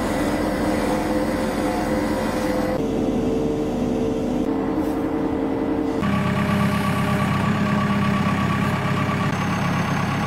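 Excavator engine running steadily, its pitch and character changing abruptly about three and six seconds in.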